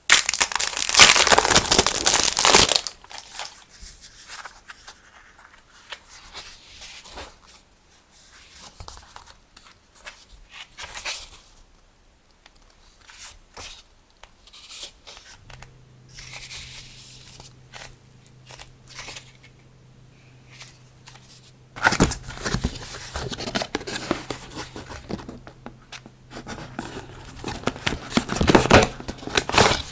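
Packaging being torn open and crinkled by hand: loud tearing and rustling for the first couple of seconds, then quieter handling rustles and small clicks, then more loud crinkling and tearing from about two-thirds of the way through. A faint steady low hum comes in about halfway.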